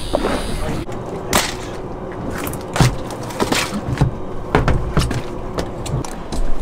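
Irregular knocks and clicks of fishing gear being handled on a boat deck, over a faint steady hum.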